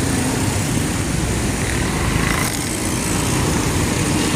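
Street traffic dominated by the small engines of auto-rickshaws and motorcycles running close by, a steady rumble with no letup.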